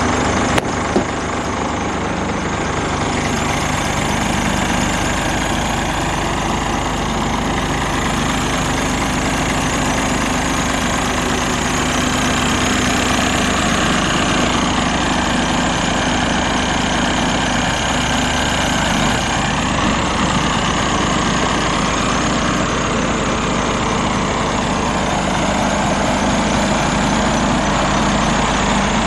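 Scania R410 truck's 13-litre six-cylinder diesel idling steadily. Two short knocks come within the first second.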